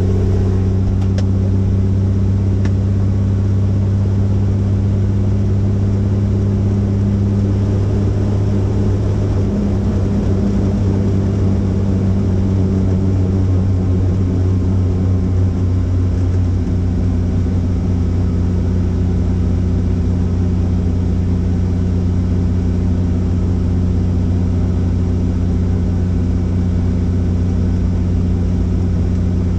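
Helicopter's engine and rotor running with a loud, steady low drone. Between about 8 and 17 seconds in, the low tones waver before settling back to a steady pitch.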